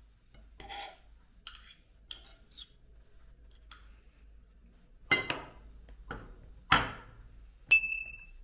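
Steel knife and fork scraping and clinking on a ceramic plate while cutting boiled meat, with a few louder short knocks later on. Near the end comes a brief high ringing chime.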